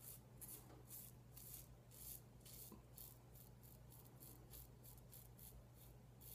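Razorock Stealth slant safety razor scraping through lathered stubble in short, faint strokes, about two or three a second.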